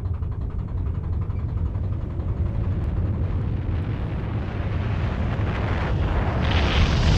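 Low, rumbling cinematic sound-design drone that slowly swells, with a rushing hiss joining in about six and a half seconds in.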